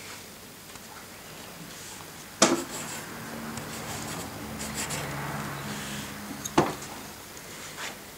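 Pencil scratching on paper as someone writes, broken by two sharp knocks, one about two and a half seconds in and the other about four seconds later.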